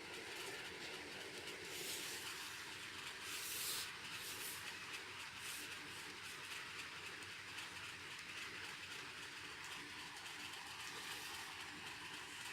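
Faint steady background hiss, room tone with no speech, with a brief louder rustle about three and a half seconds in.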